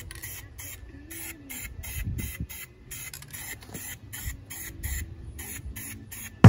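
Aerosol can of black spray paint, fitted with a pistol-grip trigger handle, spraying a wheel rim in short hissing bursts, about four a second.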